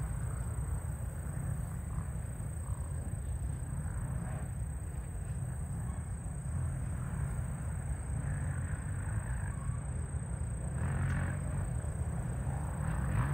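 Distant enduro dirt bike engines revving through the woods, swelling and fading several times, most clearly about two-thirds of the way in and near the end, over a steady low rumble.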